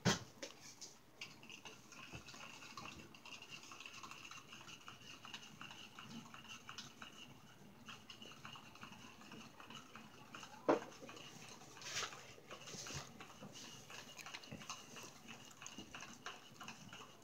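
Faint clinks and knocks of metal cutlery and plates on a wooden table, with a few sharper knocks, over a thin high whine.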